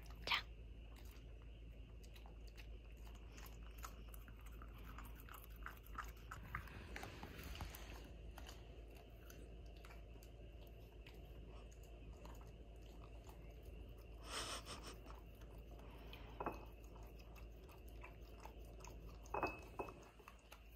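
A dog chewing and crunching its food: a long run of small quick crunching clicks, with a few louder ones in the second half.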